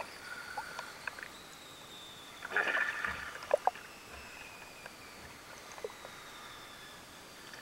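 Water splashing and lapping around a camera held at the surface, with one louder splash about two and a half seconds in and a few small clicks.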